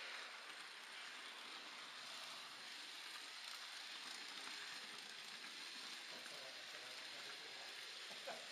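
Faint, steady hissing rustle of an H0 model train rolling along its track, heard from a camera riding on the train.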